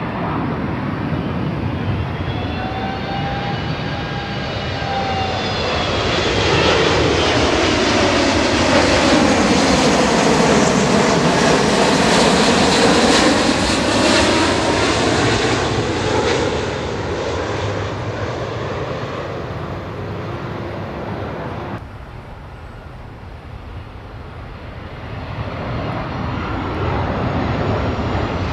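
Boeing 777-200ER jet airliner passing close by, its engine noise swelling to a loud peak about halfway through and then fading, with sweeping rising and falling tones as it goes over. The sound cuts off abruptly about three-quarters of the way through, and another aircraft's engine noise builds toward the end.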